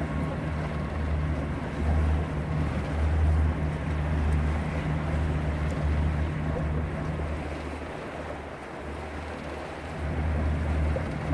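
Small boat's motor running steadily while under way, a low rumble with a steady hum, along with wind and water noise. It eases off a little after the middle, then picks up again.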